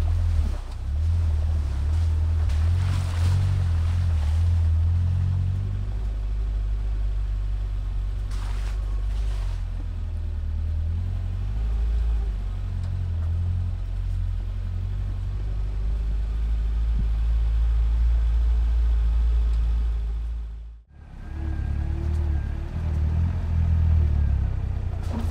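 A car driving, its engine and road noise making a steady low rumble, which drops out briefly about 21 seconds in.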